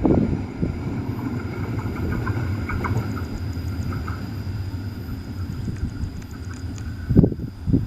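A train rumbling steadily along the track, with a few loud thumps near the end.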